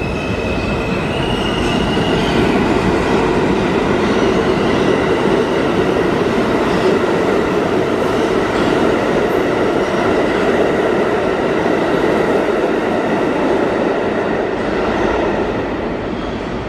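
New York City Subway R160 train moving through the station: a steady, loud rumble of wheels on rail, with a high whine in the first couple of seconds, easing off near the end.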